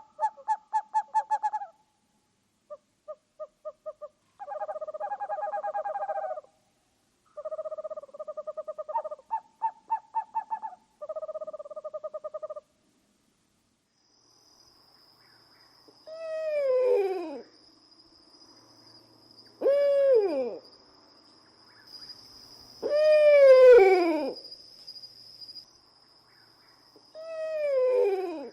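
Owl calls. First come several bursts of rapid pulsed hoots, then, after a short pause, four long calls that each fall in pitch, over a steady high-pitched background tone.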